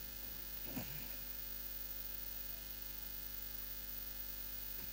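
Steady electrical mains hum and buzz from the amplified sound system between spoken lines, with one brief faint sound about a second in.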